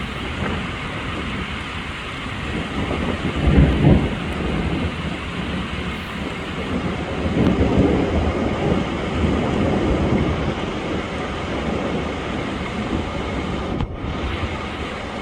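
Steady rain falling, with low rumbles swelling up about four seconds in and again around the middle.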